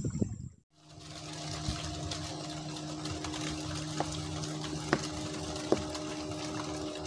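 A small motor running with a steady hum, starting after a brief dropout about half a second in, with a few light clicks over it.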